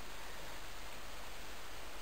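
Steady low hiss with no distinct events: the recording's background noise.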